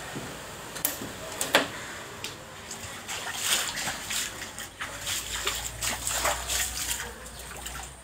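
Floodwater sloshing and splashing, as from someone wading through it: two sharp splashes in the first two seconds, then a busy run of splashes through the middle.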